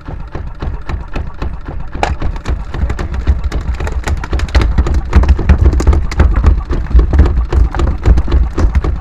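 Kubota single-cylinder diesel boat engine running close by: a heavy low rumble with fast, regular knocking, getting louder about two seconds in.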